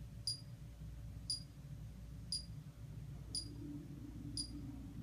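Short, sharp, high-pitched ticks at a steady pace of about one a second, over a low steady hum.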